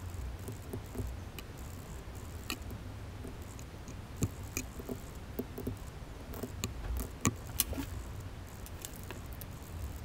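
Small hard plastic parts of a dot-matrix printer ribbon cassette being handled by hand, giving scattered light clicks and taps over a steady low hum.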